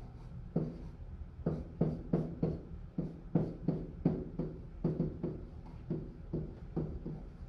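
Pen tapping and stroking on the hard surface of an interactive whiteboard as words are handwritten: a steady run of short taps, about three a second.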